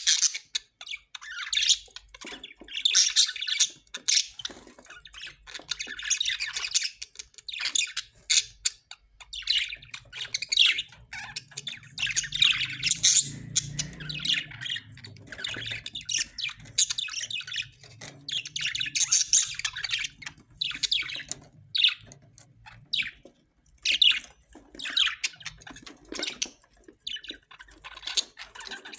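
Australian parrots squawking and chattering: a steady stream of short, harsh calls, one after another with brief gaps.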